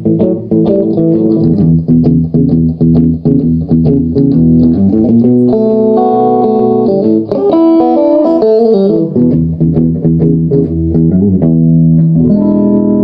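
Guitar played through a Sound City 120 valve amplifier head: quick picked notes and riffs, then fuller held chords, with a chord left ringing near the end.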